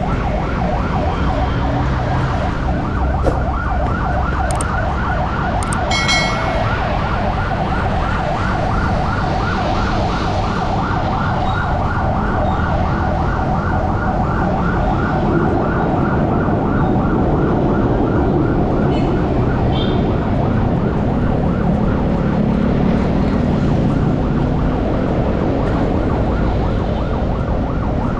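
A rapidly repeating yelp siren sounds over the steady engine and road noise of a tricycle convoy in traffic. The siren fades out about halfway through, leaving the engines and traffic.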